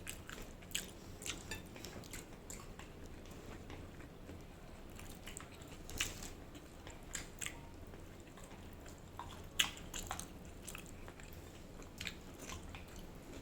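Close-up chewing and mouth sounds of someone eating rice and ground pork by hand: irregular soft clicks and smacks scattered throughout.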